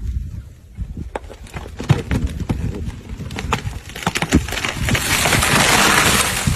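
A tree's wood cracking and snapping under the push of an elephant, a run of sharp snaps, then a swelling rush of breaking branches and leaves as the tree topples and crashes down, loudest near the end.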